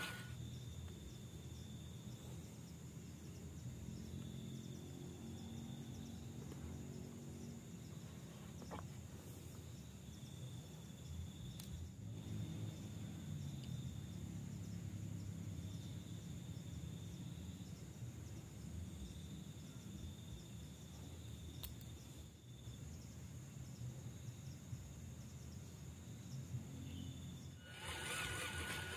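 Faint outdoor ambience: a steady high-pitched insect drone, with a second, lower insect buzz that comes and goes, over a low rumble. About a second before the end, the small electric motor and drivetrain of a WPL C54 RC truck start to whine as it drives.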